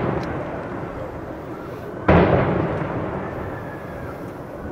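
A firework shell bursting: one sudden bang about two seconds in that rolls away in a long echo, with the echo of an earlier bang fading at the start.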